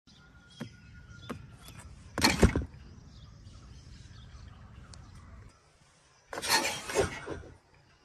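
A couple of light clicks, then a loud short thump about two seconds in, fitting the cardboard flap of a box trap dropping shut. A second burst of rattling and thumping comes near the end.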